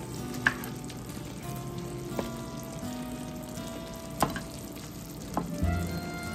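Caramel sauce sizzling in a skillet as cooked apples are lifted out with silicone-tipped tongs, with four sharp clicks of the tongs against the pans.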